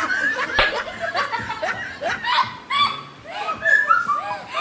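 Several girls laughing and giggling in short bursts, with a brief knock about half a second in.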